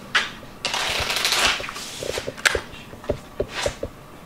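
A deck of playing cards being shuffled by hand: a dense rustling run of about a second, then a string of short sharp clicks and snaps.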